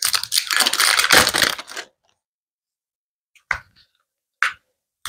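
Packaging of a small eyebrow styling soap crackling for about two seconds as it is torn open by hand, then two short clicks.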